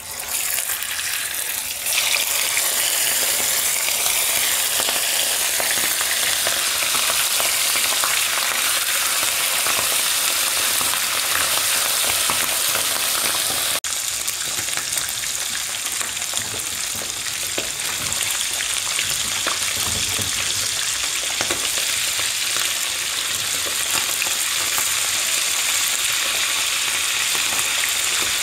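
Beef and cow leg frying in hot oil in a pan: a steady sizzle with fine crackling that grows louder about two seconds in.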